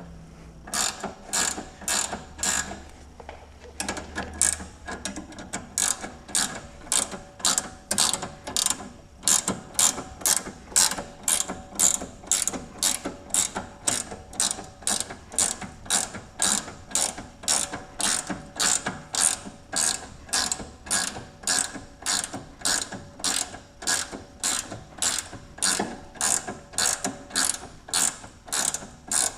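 Hand ratchet wrench clicking in quick, even back-and-forth strokes, about two a second, as a fastener is turned. There is a short pause about three seconds in.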